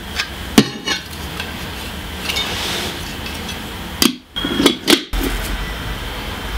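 Plastic parts of an artificial Christmas tree being handled and fitted together: sharp clicks and knocks as the stand's legs are pushed into place, then rustling and clattering as plastic branches are slotted into the pole. The sound cuts out briefly twice, about four and five seconds in.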